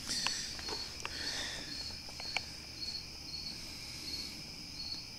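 A cricket chirping steadily, about two high chirps a second, with a few light clicks and taps mixed in, the sharpest right at the start and another about two and a half seconds in.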